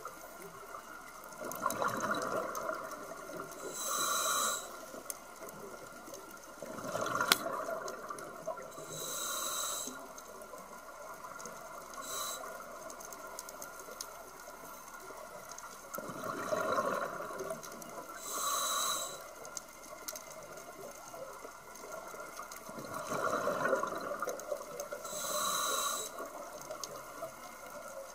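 Scuba diver breathing through a regulator underwater: about four slow breaths, each a rushing draw and a hiss of exhaled bubbles a couple of seconds apart, with long pauses between.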